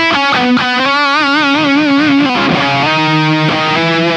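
Electric guitar played through a Flatsons FCP-2 analog compressor pedal. Long sustained notes with wide vibrato give way, about two and a half seconds in, to a few freshly picked notes that each ring on evenly with the pedal's compressed sustain.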